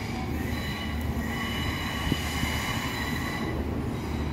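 NI Railways diesel multiple unit running slowly into the platform, its wheels squealing on the curved track in several steady high tones, over a steady low rumble of train engines.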